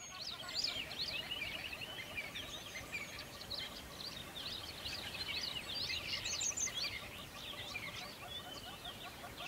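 Many small birds chirping at once: a dense, continuous stream of quick, high overlapping chirps.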